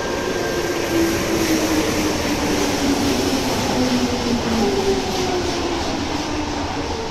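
Nagahori Tsurumi-ryokuchi Line linear-motor subway train pulling in alongside the platform, its motor whine falling in pitch in several steps as it slows, over steady running noise from the wheels.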